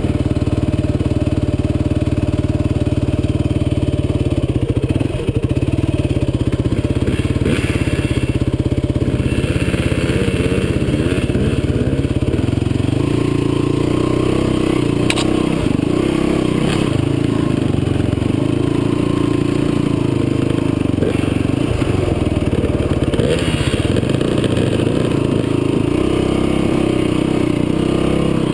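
Dirt bike engine running steadily at low speed, its pitch rising and falling a little with the throttle as the bike picks its way down a rocky trail.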